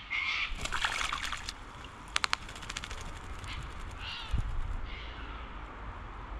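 Wattlebirds calling: harsh, raspy calls at the start and again twice in the second half, with two runs of fast, sharp clicking in between.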